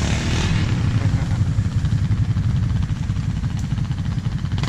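Quad bike (ATV) engine running steadily at idle, a low, even pulsing.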